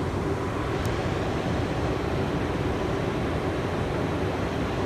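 Interior of an automated people mover car pulling into a station: a steady rumble of running noise with a low hum underneath, and a faint tick about a second in.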